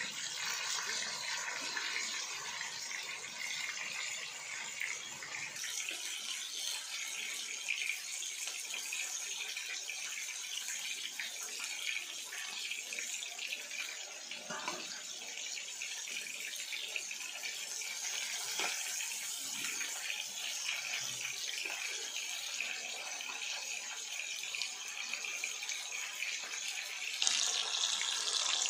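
Fish steaks deep-frying in hot oil in a wide pan: a steady sizzle of bubbling oil, louder near the end.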